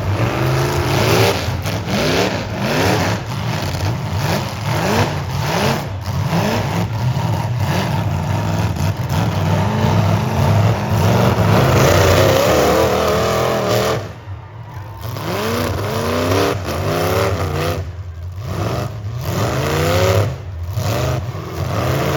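Several full-size demolition derby cars' engines revving hard again and again, their pitch repeatedly rising and falling over a steady low drone, with sharp knocks in between. The sound drops briefly about two thirds of the way in.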